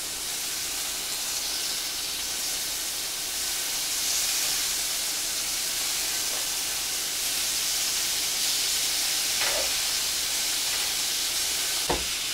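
Chopped bacon sizzling in a skillet over a lowered gas flame: a steady hiss, with a sharp knock just before the end.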